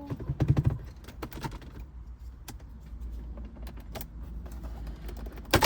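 Clicks and clunks from the Acura TSX's center console as the gear lever is moved into neutral: a cluster of heavier clunks about half a second in, then scattered light plastic clicks and one sharp knock near the end.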